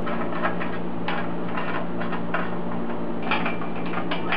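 Bolts being tightened on a stainless steel turbo heat shield with a hand tool: irregular bursts of small metallic clicks. A steady low hum runs underneath.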